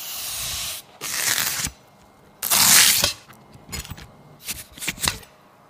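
Kitchen knife on a wooden cutting board, slicing a large scallion open lengthwise and scraping along spring onion leaves: three long crisp scraping strokes, the loudest about two and a half seconds in, then a few short sharp scrapes.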